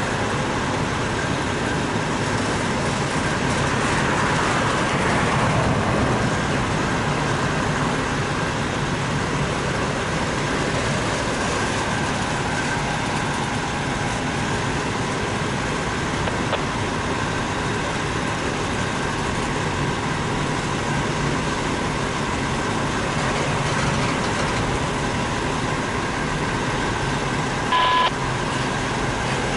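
Loaded double-stack container well cars of a BNSF intermodal freight train rolling past: a steady noise of steel wheels on rails with a faint, steady high squeal. A short, loud beep sounds near the end.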